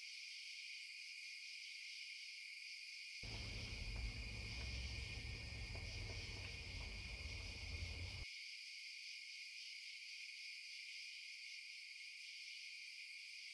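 Faint, steady chorus of crickets chirring. From about three seconds in to about eight seconds, low rustling and handling noise joins it, then cuts off suddenly.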